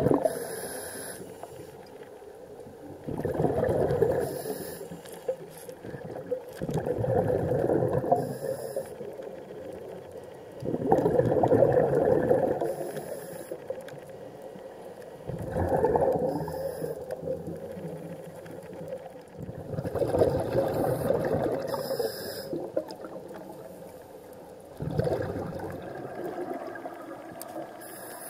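Scuba diver breathing underwater through a regulator: a gurgling rush of exhaled bubbles about every four seconds, seven breaths in all, with quieter spells between.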